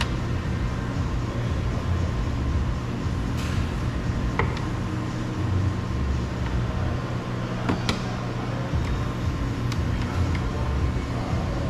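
Steady low mechanical hum with a few sharp plastic clicks, about four spread across several seconds, as the door trim panel's wiring connectors are unplugged.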